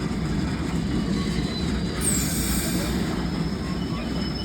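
Freight train of stone wagons moving slowly, a steady low rumble, with a brief high squeal falling in pitch about two seconds in.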